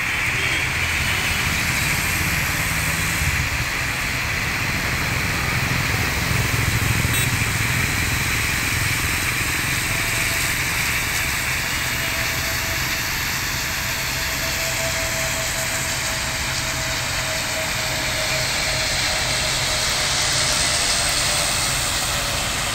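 Steady rumble and hiss of busy road traffic mixed with the jet engines of an Air India Airbus A320 on final approach. A faint engine whine drifts slowly down in pitch through the middle, and the noise swells slightly near the end as the jet nears touchdown.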